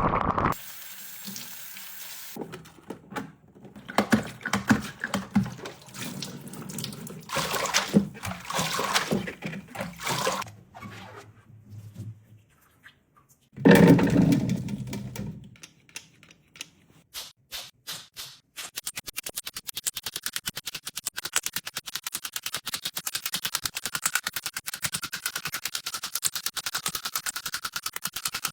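Water running and splashing, as in a sink, in irregular bursts. Then music with a fast, steady beat comes in about two-thirds of the way through.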